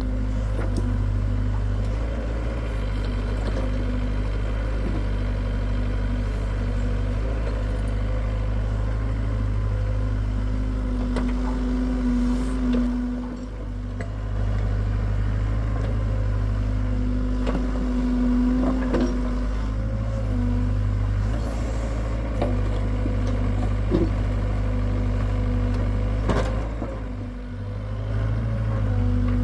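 Hitachi excavator's diesel engine running steadily, its note swelling and easing as the load changes, with a few short knocks and clanks.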